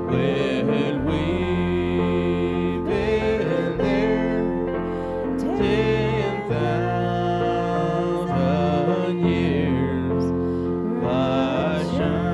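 Gospel music: a voice singing a melody over sustained instrumental chords.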